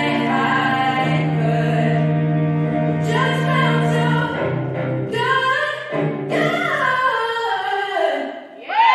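The dance's recorded music: layered singing voices holding chords over a low sustained note, stepping down in pitch in the last couple of seconds and dying away at the end of the piece. Audience cheering breaks in just as it ends.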